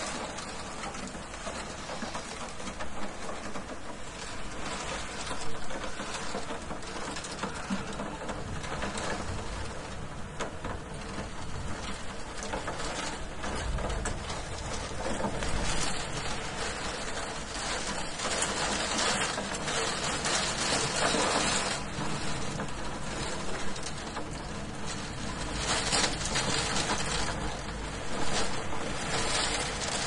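Hailstones pattering against a window pane: a dense, steady rattle of many small impacts on glass, swelling now and then into brief heavier flurries.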